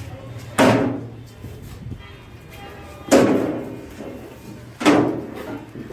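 Three heavy thuds: about half a second in, about three seconds in, and near the five-second mark. Each one dies away over about half a second.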